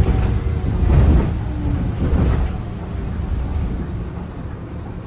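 City bus running, heard from inside the cabin: a deep engine and road rumble with a faint whining tone over it, growing quieter toward the end.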